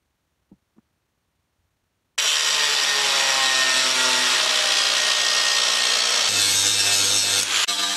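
Angle grinder with an abrasive disc grinding the edge of a steel blade: a loud, harsh grinding hiss over the motor's whine that starts abruptly about two seconds in, after near silence with two faint clicks.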